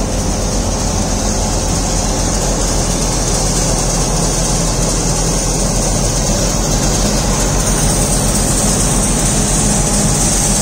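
National wheat thresher running steadily at full work, with the steady drone of the tractor engine beside it, loud and unbroken.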